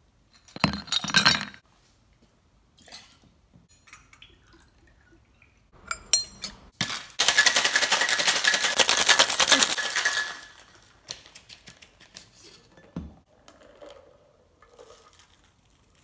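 Ice cubes clinking as they are scooped into a glass, then, a few seconds later, ice rattling hard in a steel cocktail shaker for about three seconds, the loudest part. Faint clinks and a single knock follow.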